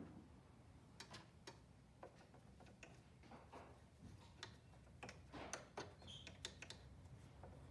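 Faint, irregular clicks and scratches of a small brush and fingers working in the bobbin and hook area of a Janome 2212 mechanical sewing machine while cleaning out lint.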